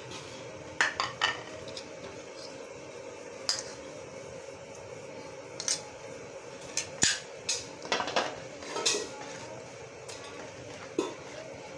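Kitchenware clinking: a spoon and dishes knocking against a bowl and being set down, about a dozen sharp clinks spread unevenly, some in quick runs, over a faint steady hum.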